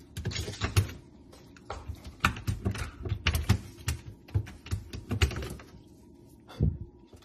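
A puppy pawing and scrabbling at the plastic drawer of an open refrigerator, its claws making quick, irregular clicks and taps in bursts with short pauses.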